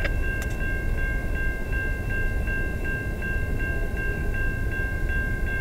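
Railway crossing warning bell ringing steadily, about three strikes a second, over a low rumble.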